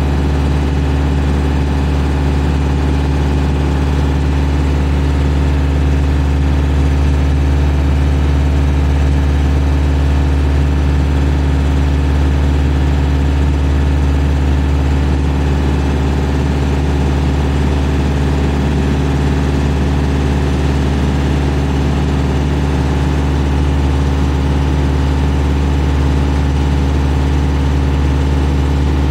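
Engine of a 2002 JLG 660SJ telescopic boom lift running steadily at a constant speed while the boom is being worked.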